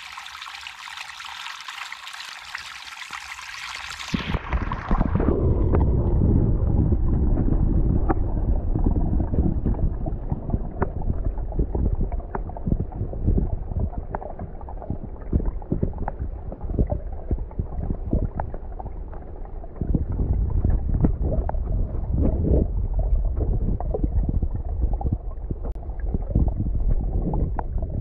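A small stream trickling over rocks into a pool, a bright splashing hiss. About four seconds in, the sound turns muffled as the microphone goes under the water: a low underwater rumble with many small clicks and crackles from the moving water.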